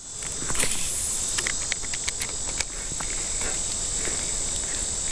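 Steady high-pitched insect buzz over a continuous rush of shallow creek water, with scattered light clicks and knocks.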